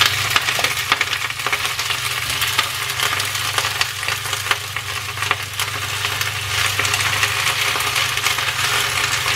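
Choi sum greens sizzling and crackling in hot oil with ginger and garlic in a frying pan as they are stirred with chopsticks, with a steady low hum underneath.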